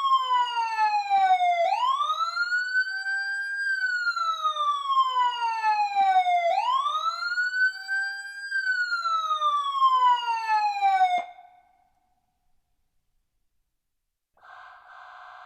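Electronic emergency siren wailing in slow cycles: the pitch rises quickly, holds briefly, then falls slowly, about every five seconds. It cuts off suddenly about eleven seconds in. After a short silence, a faint steady buzzing tone starts near the end.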